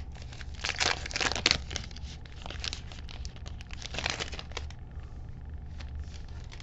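Foil wrapper of a Panini Mosaic soccer trading-card pack crinkling as it is torn open and the cards are slid out, in bursts for about four and a half seconds. After that there are only a few faint rustles over a low steady hum.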